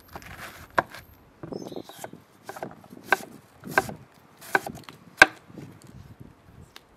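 Chef's knife slicing through a red cabbage on a wooden cutting board: each stroke gives a crisp crunch that ends in a sharp knock of the blade on the board. There are about seven cuts at a steady pace, and the one about five seconds in is the loudest.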